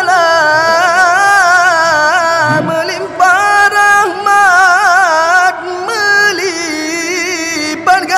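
A voice singing a sahur wake-up song for Ramadan in long held notes, bent and wavered in ornate runs, with short breaths about three and six seconds in.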